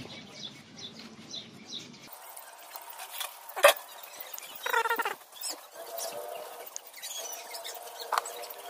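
Handling of an engine valve in a motorcycle cylinder head as it is set into its seat with grinding compound for valve lapping, with a sharp metal click about three and a half seconds in. Birds chirp in the background.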